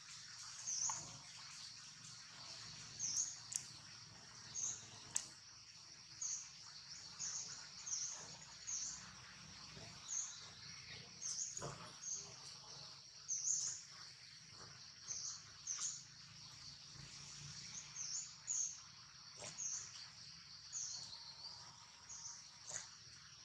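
Faint outdoor ambience: a steady high-pitched insect drone, with short, sharp chirps above it repeating every half second to a second, and a few faint clicks.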